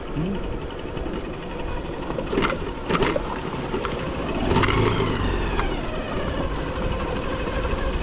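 Motorcycle running at low speed over a rough, rocky dirt track, with a few sharp knocks as the wheels hit stones.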